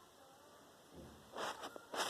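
Crackling, crinkling rustle close to the microphone, starting loudly a little past halfway after a faint, quiet start.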